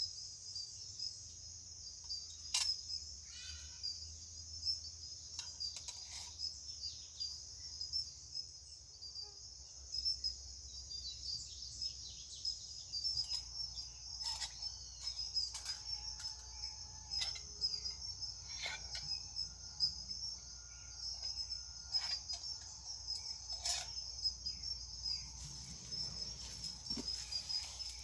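Steady high-pitched chirring of insects, with scattered short clicks and knocks.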